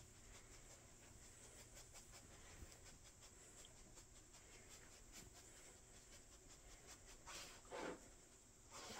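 Near silence, with an Australian Shepherd sniffing for a hidden treat: faint scattered ticks, then two short, louder sniffs near the end.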